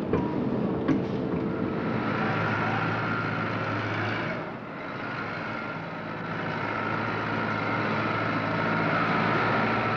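Tractor engine running steadily as a newly assembled tractor drives off the assembly line, over factory machinery noise, with a sharp clank about a second in.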